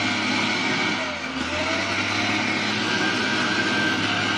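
Diesel engine of a Case wheel loader running steadily under load, a low drone with a steady high whine over it.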